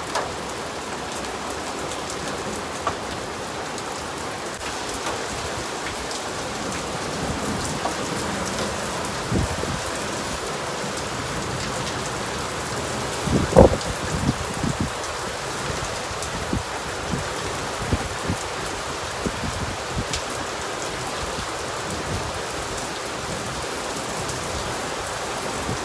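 Heavy rain mixed with hail falling steadily, with scattered sharp ticks of hailstones striking hard surfaces. One louder thump about halfway through.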